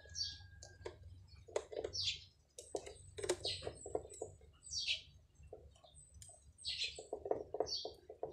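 Small birds chirping repeatedly, short high downward chirps about once a second, with a few sharp clicks and bursts of lower rapid pulses between them.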